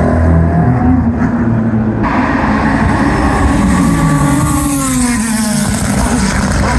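GT2 race car engine running loud. About two seconds in the sound changes abruptly to a noisier engine note, and its pitch then falls steadily over the next few seconds.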